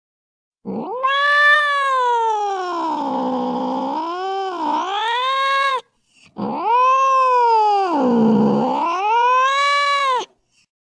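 An angry cat caterwauling: two long, drawn-out yowls, each about five seconds, the pitch rising, dipping low into a growl-like moan in the middle and climbing again before breaking off.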